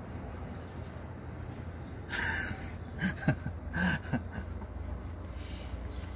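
A man's breathy chuckling: a sharp breath about two seconds in, then a few short laughing puffs of breath over the next second or so, over a steady low hum.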